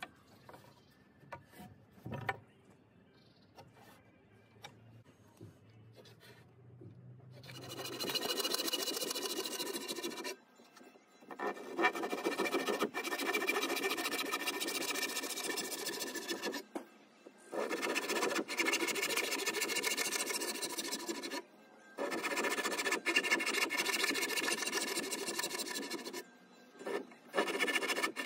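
Handsaw cutting through a wooden roof rafter in steady back-and-forth strokes, in runs of several seconds broken by short pauses. The sawing starts about a quarter of the way in; before that there are only faint scratches and small clicks.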